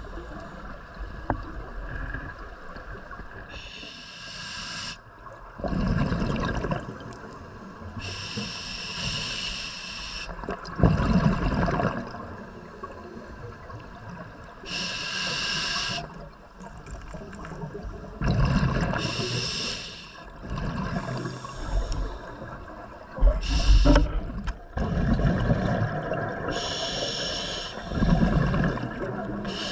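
Scuba diver breathing through a regulator, five or six breaths. Each is a hissing inhale through the demand valve followed by a louder gurgle of exhaled bubbles.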